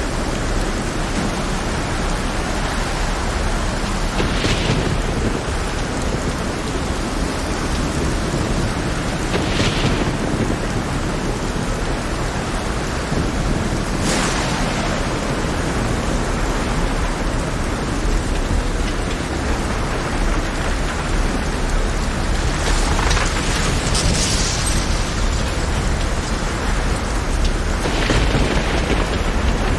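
Heavy rain over a rough sea: a steady, loud hiss with a deep rumble underneath, broken about six times by brief louder surges of hissing noise.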